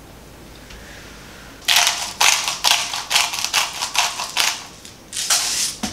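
Hand-twisted salt grinder filled with pink salt crystals being ground: a run of dry, crunching rasps at about two to three twists a second, starting a couple of seconds in, then one more short burst near the end.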